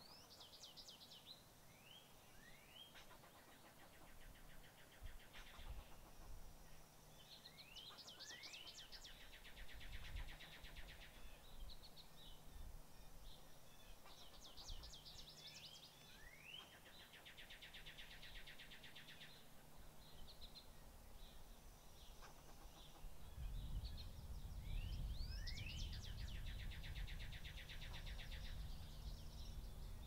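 A songbird singing the same song four times, each a few quick rising notes followed by a rapid trill about two seconds long. A low rumble comes up about two-thirds of the way through.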